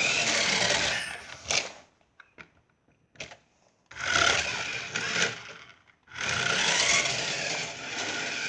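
Toy remote-control car's small electric motor and gears whirring in bursts: it runs, stops for about two seconds with only a few clicks, then runs again twice.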